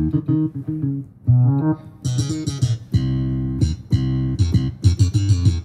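Yamaha PSR-SX900 arranger keyboard playing a bass line in a plucked bass-guitar voice: a run of low notes, some short and some held. This is the bass part being recorded for a Gulf sawt rhythm, with a brighter layer of sound joining from about two seconds in.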